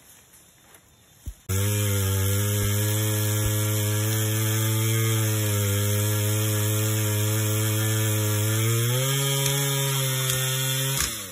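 A chainsaw engine running at a steady speed. It starts abruptly about a second and a half in, rises a little in pitch near the end, then cuts off sharply.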